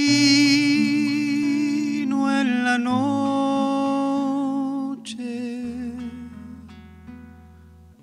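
Acoustic guitar accompanying a wordless sung or hummed melody of long held notes with vibrato. The voice drops out about five seconds in, and the guitar carries on more quietly.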